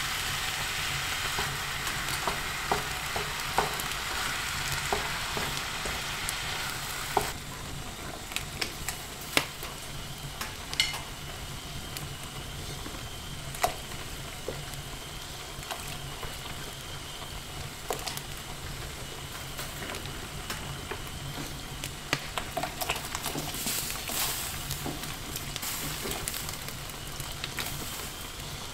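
Food sizzling in a frying pan, stirred with a utensil that clicks and scrapes against the pan now and then. The sizzle is louder for the first seven seconds or so, then drops suddenly to a quieter frying over a low steady hum.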